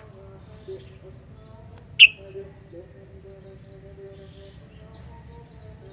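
Sooty-headed bulbul giving one loud, sharp call about two seconds in, then fainter high chirps. A steady low background hum runs underneath.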